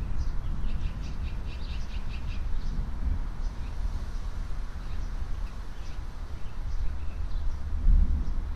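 Backyard songbirds chirping: a quick run of chirps in the first couple of seconds, then scattered calls, over a steady low rumble that swells near the end.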